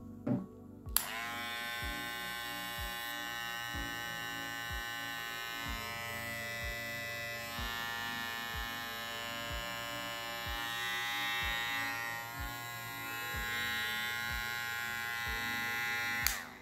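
Cordless hair clipper switched on about a second in, its motor running steadily for about fifteen seconds, then switched off just before the end.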